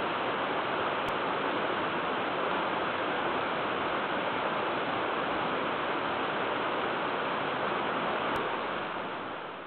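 Steady rush of flowing creek water, fading out near the end.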